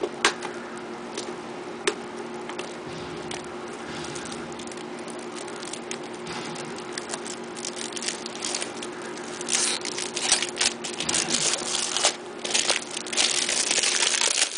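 Plastic wrapping crinkling as it is torn off a product box by hand: a few sharp clicks at first, then the crinkling grows dense and loud over the last five seconds.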